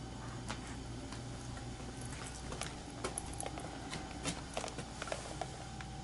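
Scattered light clicks and ticks, thickest in the middle, over a steady low hum; a steady higher tone comes in near the end.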